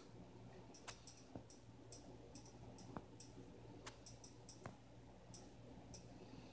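Near silence: a low steady hum with scattered faint clicks and ticks, five or six of them sharper than the rest, at uneven intervals.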